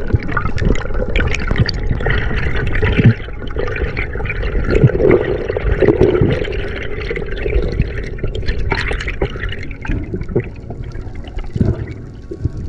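Water sloshing and bubbling around a spearfisher's camera in the sea, with scattered irregular knocks and clicks.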